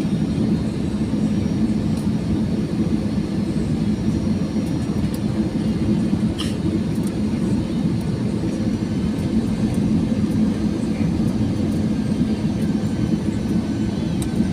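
Steady cabin noise of an Airbus A320-214 airliner heard from inside the passenger cabin: an even, low engine and airflow rumble.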